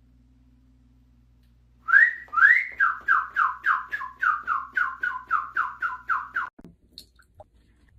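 A rapid run of short, whistle-like tones, about three or four a second, for some four and a half seconds. The first two glide upward and the rest each slide downward, and the run stops abruptly.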